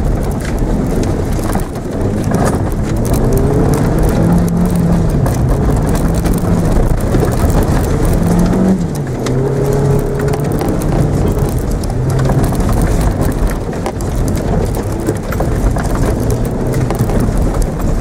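Mitsubishi Mirage engine heard from inside the cabin, revving up and down as the car is driven hard around a cone course, over a steady rumble. The engine pitch climbs, drops sharply about nine seconds in, then rises and falls again.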